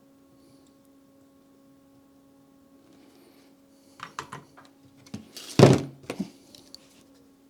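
Faint steady hum, then a few light clicks about four seconds in and a louder single thunk a little later, followed by a couple more clicks: tools and parts being handled and set down on a workbench during soldering work.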